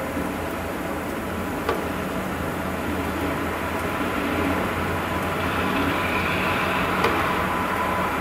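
Steady low hum and rumble from an unidentified source, the unexplained 'strange sound' of Arkhangelsk, over a wash of noise. Two faint clicks come about two seconds in and near the end.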